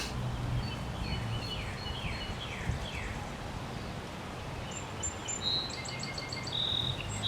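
Songbirds singing: a run of downward-slurred whistles, then a quick series of high chirps near the end, over a steady low hum.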